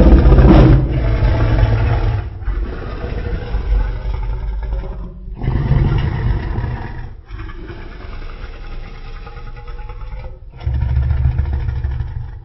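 Custom Godzillasaurus monster vocalization, built from layered animal and creature sounds: a loud roar at the very start, then a series of about five deep growls separated by short pauses, the last one swelling louder near the end.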